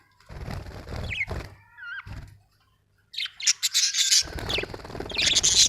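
Budgerigars calling: a few short rising-and-falling whistled chirps, then loud, dense, high-pitched chattering over the last few seconds, mixed with bursts of rustling noise.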